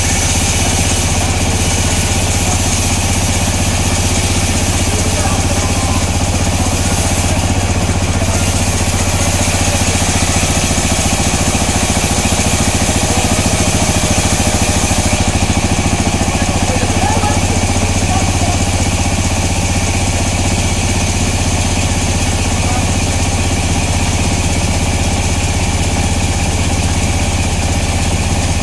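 Sawmill machinery running steadily, a constant low hum under a high hiss; the hiss eases a little about halfway through.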